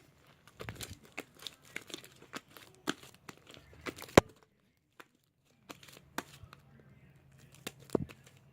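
Homemade slime being kneaded and stretched by hand, giving irregular sticky clicks and pops, with one sharp louder pop about four seconds in and a short pause just after.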